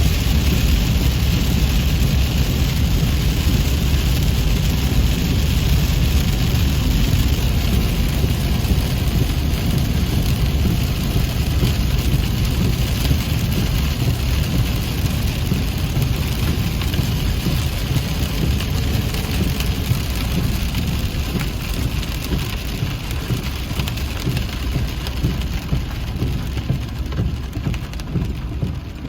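Steady heavy rain, with a deep continuous rumble underneath that eases slightly near the end.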